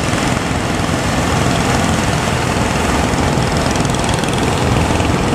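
A fishing boat's engine running steadily under a loud, even rush of wind and surf.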